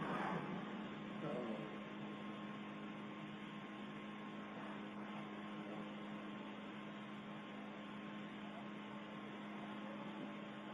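Steady low electrical mains hum with a background hiss on an old recording, and faint traces of the voice dying away in the first second or two.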